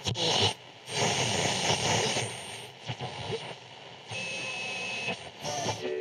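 Radio static as a radio is tuned between stations: patches of hiss that cut in and out abruptly, with a steady high whistle for about a second in the middle.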